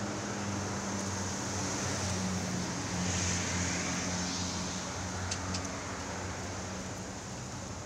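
Ram pickup truck's engine idling with a steady low hum, a little louder about three seconds in, with two faint ticks about five seconds in.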